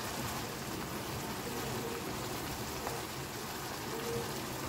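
Boneless chicken in a yogurt-and-spice marinade gravy bubbling and sizzling steadily in an open nonstick frying pan while a spatula stirs it.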